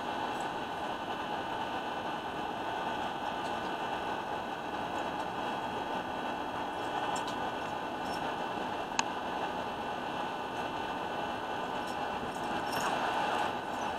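Steady background hiss with faint steady hum tones. There is one sharp click about nine seconds in, and light scuffling and clicking near the end as the dogs move about on the mattress.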